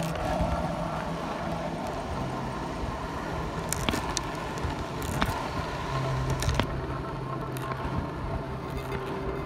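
Longboard wheels rolling over coarse asphalt, a steady gritty rumble, with a few sharp clicks about every second and a half.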